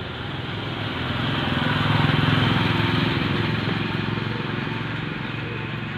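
A motorbike engine passing by, growing louder to a peak about two seconds in and then slowly fading away.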